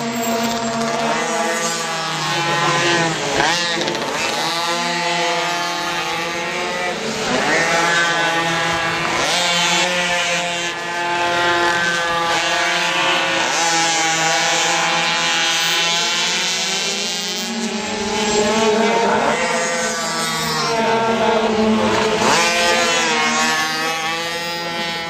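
Several pocket-bike (minimoto) racing engines, small two-strokes, revving high as the bikes race around the track. Their overlapping pitches keep rising and falling as the riders accelerate out of corners and ease off into them.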